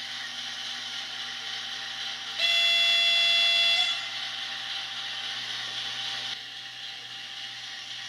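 Sound-equipped model WDG-4P diesel locomotive with a steady diesel running sound from its small speaker, over the whir of its motor and gears. About two and a half seconds in it gives one loud air-horn blast lasting about a second and a half. The running sound drops a little about six seconds in.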